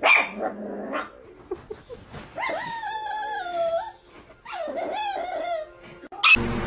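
A dog whining in two drawn-out, wavering calls, each about a second long.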